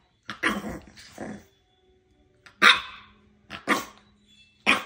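Five-week-old English Bulldog puppy barking: a handful of short, sharp barks, roughly one a second, with brief pauses between.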